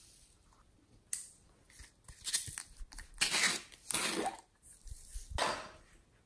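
Small plastic containers of slime toppings being handled and opened, with foam beads and sprinkles tipped out: a series of short crunchy rustles and scrapes, the longest about halfway through.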